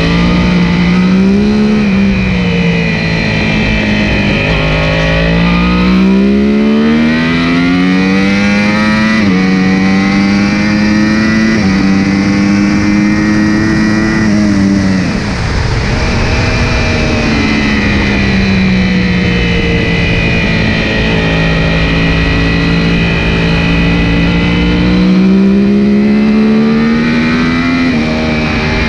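Yamaha YZF-R1 inline-four engine heard from on board at track speed, with wind rushing past. It revs up hard through the gears, its pitch dropping sharply at each upshift. About halfway through it falls away as the bike brakes and shifts down for a corner, holds a steady pitch, then climbs again near the end.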